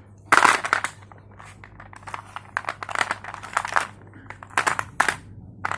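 Slate pencil crunching: a run of sharp, crisp crackling crunches, loudest just after the start and again in clusters later on.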